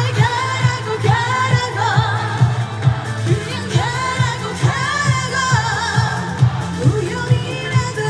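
A woman singing a Korean trot song live over backing music with a steady beat.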